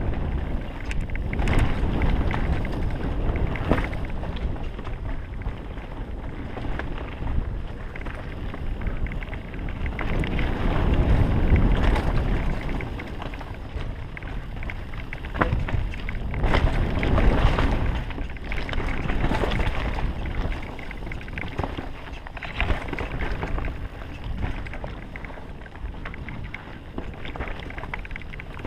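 Mountain bike ridden down a dirt forest trail, heard from a helmet camera: wind rushing over the microphone, tyres on dirt and the bike rattling and clicking over bumps. It surges louder with speed several times, most of all about 11 to 12 seconds in and again around 17 seconds in.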